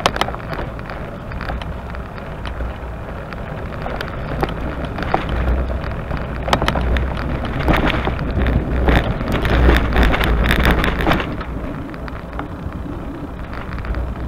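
Loaded touring bicycle being ridden, with wind buffeting the microphone as a low rumble that swells in the middle, and a crackle of tyre noise and rattling clicks from the bike.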